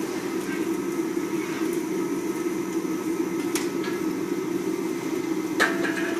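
Industrial sawdust burner running, a steady low drone from the furnace and its blower, with a sharp click about three and a half seconds in and another near the end.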